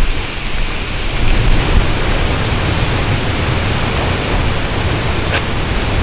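Fast-flowing mountain stream rushing steadily, a loud even hiss with a low rumble under it.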